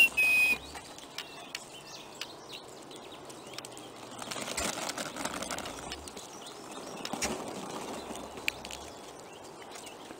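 A loud two-note whistle right at the start, then wild turkey toms strutting: feathers and wings rustling. About halfway through and again later comes a short sharp puff followed by a low hum, the tom's spit-and-drum display.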